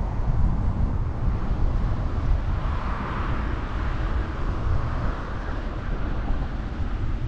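Wind rushing over the camera microphone while riding a bicycle, with a passing vehicle swelling up and fading away in the middle.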